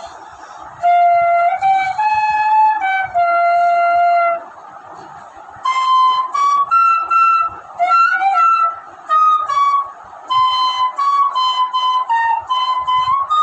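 Bamboo bansuri (side-blown flute) playing a slow melody in phrases of held, stepping notes, with short breaks for breath at the start, about four and a half seconds in, and about ten seconds in. The phrases after the first break lie higher than those before it.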